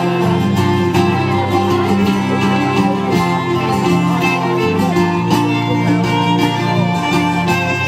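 Folk band playing an instrumental tune with a steady beat: held notes over strummed and plucked strings.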